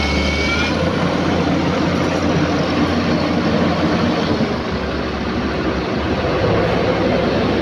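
Sany SY215 hydraulic excavator's diesel engine running loud and steady close by as the boom is lowered, its note shifting slightly about halfway through.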